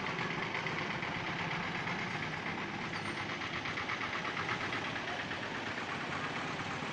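Passenger bus engine running as the bus crawls past at low speed: a steady, rapid, even engine beat.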